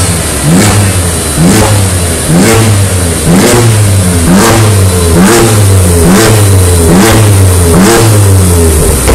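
BMW F80 M3's twin-turbo straight-six, tuned to Stage 1, revved through an Armytrix cat-back valvetronic exhaust. It is blipped in quick, repeated stabs, about one a second, each a short rise in pitch that drops straight back.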